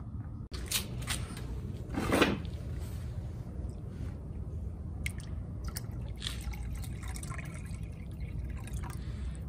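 Water sloshing, dripping and splashing as a plastic gold pan of muddy concentrate is dipped and worked in a tub of water, panning it down. There is a louder splash about two seconds in.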